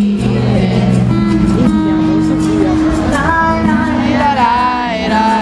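Live pop performance of a band with acoustic guitar playing, sustained notes carrying through; a sung vocal melody comes in about three seconds in.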